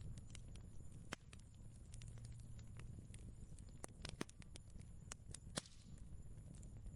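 Cooking fire crackling: irregular sharp pops and clicks over a low steady hum.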